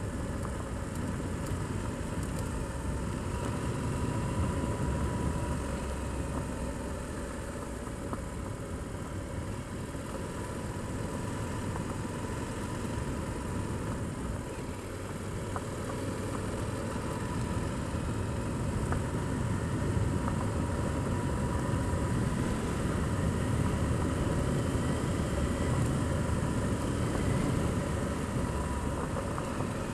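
Motorcycle engine running steadily while riding along a loose gravel road, with the noise of the tyres on the gravel.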